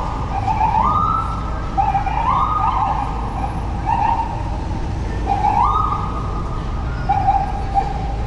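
Emergency vehicle siren on a city street, sounding in short repeated whoops: its pitch jumps up, holds briefly and drops back, about once a second, over the low rumble of traffic.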